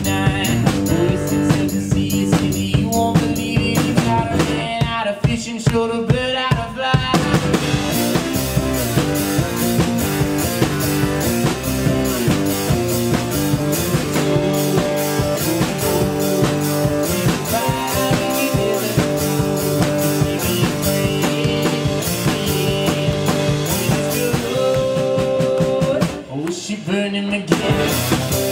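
Live acoustic guitar and drum kit playing a rock song, the drummer keeping a steady beat on snare and bass drum. The music drops out briefly near the end.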